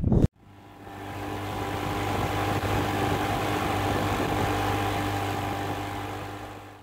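Outboard motor of a small fishing boat running steadily underway, with a rush of wind and water over it. It fades in over the first second and fades out at the end.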